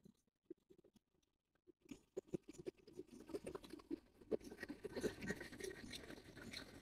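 Faint, irregular clicking and knocking of passenger-carriage wheels rolling slowly over rail joints and points, starting about two seconds in and growing busier towards the end.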